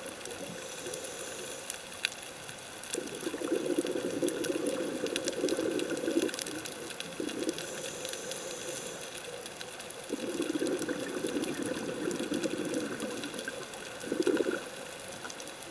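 Scuba regulator exhaust: the diver's exhaled air bubbling out underwater in long rushing bursts of about three seconds, separated by quieter gaps while breathing in, about four breaths in all.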